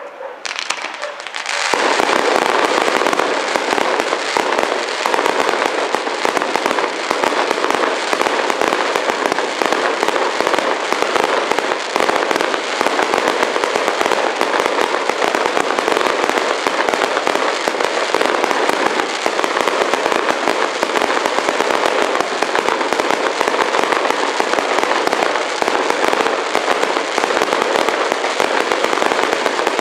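Fireworks: after a short lull, a dense, unbroken barrage of rapid crackling and popping starts about two seconds in and holds steady, from rows of ground-launched fireworks throwing up crackling sparks.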